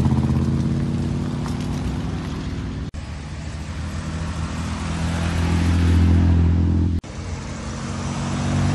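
Classic sports car engines driving past one at a time, each getting louder as it approaches: a Porsche 911's flat-six, then two Austin-Healey 3000s with their straight-six engines. The sound cuts off abruptly twice as one car gives way to the next.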